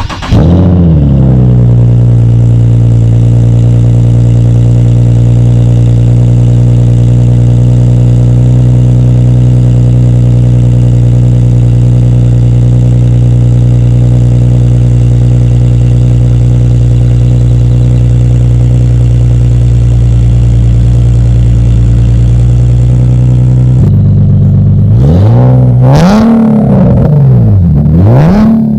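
Infiniti G37's 3.7-litre V6 (VQ37VHR) on a cold start through a GReddy Revolution RS 3-inch titanium single-exit catback with resonated test pipes. It catches with a quick flare, then settles into a steady fast cold idle. Near the end the throttle is blipped for a few short revs that rise and fall.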